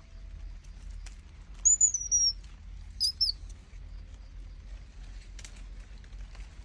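Two high-pitched animal calls: a falling whistle about two seconds in, then a shorter squeak a second later, with faint rustling and ticks in between.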